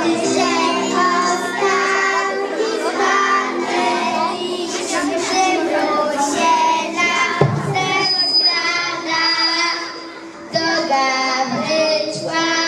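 A group of young children singing together. There is a single brief thump about halfway through and a short lull in the singing about ten seconds in.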